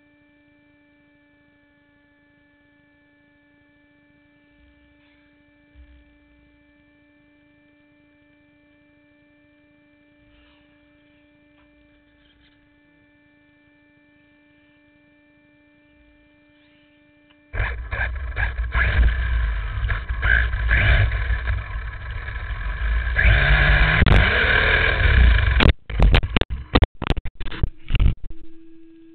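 Onboard sound of an HPI Bullet ST Flux brushless RC stadium truck: a faint steady electronic hum while it sits still. About two-thirds of the way through it suddenly drives off with loud motor and driving noise, and near the end come several sharp knocks as it takes the ramp, flips and lands.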